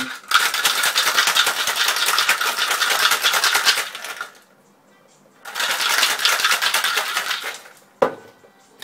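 Ice cubes rattling hard inside a Boston shaker, a mixing glass sealed into a metal tin, as a cocktail is shaken: about four seconds of fast, dense rattling, a short pause, then about two seconds more. A single sharp knock near the end.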